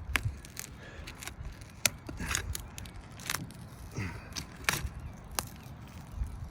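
Scattered sharp clicks and scrapes, about six or seven at irregular intervals, as an asphalt roof shingle that is stuck down is pried and worked at to lift it.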